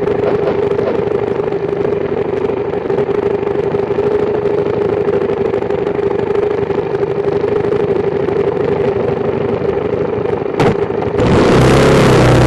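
BMW F650GS motorcycle engine running through its stock exhaust while being ridden, a steady engine note. Near the end it turns suddenly louder, with a wavering pitch.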